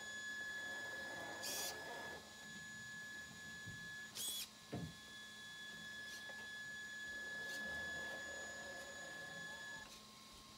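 Electric drive motor and gears of a Traxxas 4-Tec 2.0 RC car whining at low speed as it shuffles forward and back on carpet, the pitch rising and falling with the throttle. Two short sharp clicks, about 1.5 and 4 seconds in.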